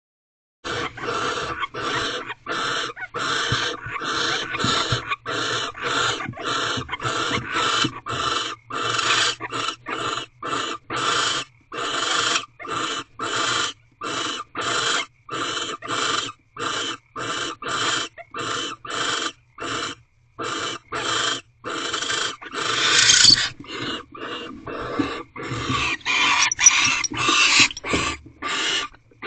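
Barn owls giving a long run of short, rasping hiss calls, about two a second, with louder, harsher calls near the end.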